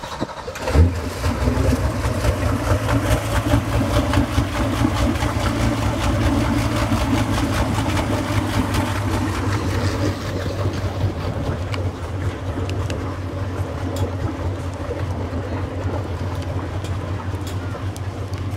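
Motorboat engine starting about a second in, then idling steadily.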